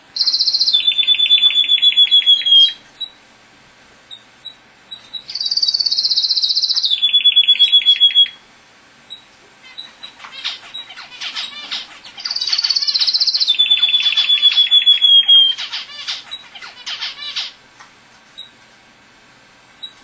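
Male canary singing: three song phrases, each opening with a high, fast trill that drops to a slightly lower, evenly pulsed rolling trill. Short scattered chirps come between the second and third phrases and after the last.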